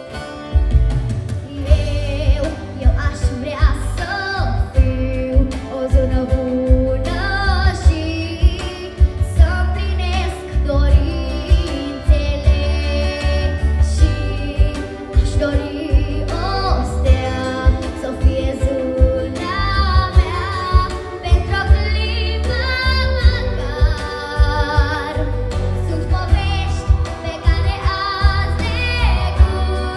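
A young girl singing a Romanian pop song into a microphone over instrumental accompaniment with a steady bass beat.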